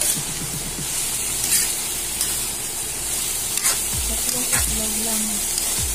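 Sliced bitter gourd sizzling in hot oil in a wok as a metal spatula stirs it, with a few sharp scrapes of the spatula against the pan.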